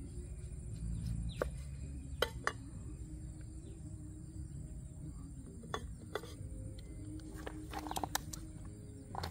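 A kitchen knife tapping and cutting on a wooden chopping block as bell peppers are sliced: a few scattered sharp knocks, over a steady low rumble and a thin high insect drone.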